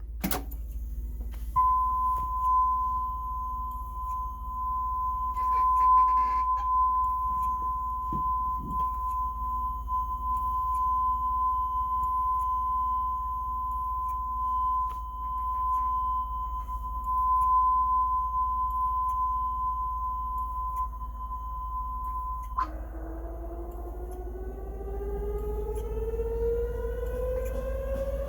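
Test tone played through a Pioneer RT-909 reel-to-reel tape deck: a steady 1 kHz tone for about twenty seconds, then an abrupt switch to a tone with overtones slowly rising in pitch. A low steady hum runs underneath.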